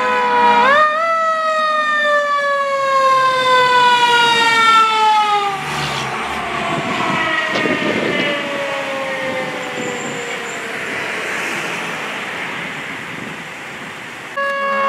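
Fire truck siren wailing as the truck drives past. Its pitch jumps up about a second in, glides slowly downward, then drops sharply about five and a half seconds in as the truck passes. After that it fades, with the truck's engine and road noise briefly heard. Near the end the siren comes back suddenly louder.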